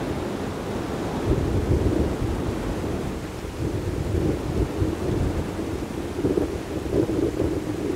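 Geothermal steam vent (fumarole) venting with a steady, rushing rumble that swells now and then, mixed with low wind rumble on the microphone.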